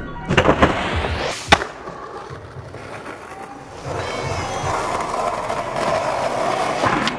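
Street skateboarding: a few board clacks and a sharp landing impact about a second and a half in, then skateboard wheels rolling steadily over rough asphalt from about four seconds in.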